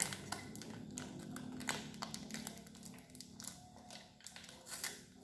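Faint crinkling and clicking of plastic snack wrappers being handled, with small eating sounds as the snacks are bitten, a scattering of short irregular clicks.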